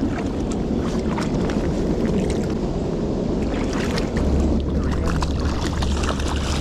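Steady rush of river water below a dam spillway, with scattered small splashes and clicks near the water's edge. A deeper low rumble comes in about four seconds in.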